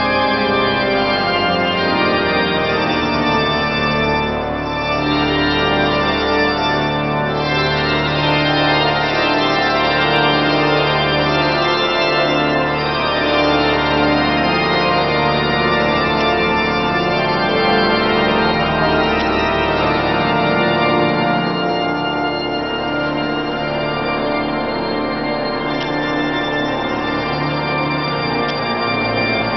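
Pipe organ playing, full and sustained, with many notes held together as chords.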